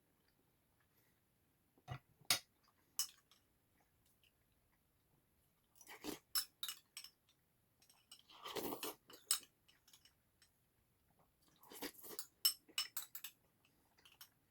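Eating sounds from a bowl of potato sujebi, sped up to double speed: utensils clicking against the bowl and chewing. They come in four short clusters of sharp clicks with quiet gaps between.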